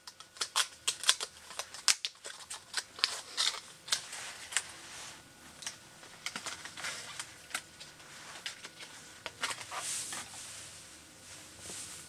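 Irregular light clicks, taps and plastic rattling of a laptop memory module and its packaging being opened and handled, busiest at the start and again near the end.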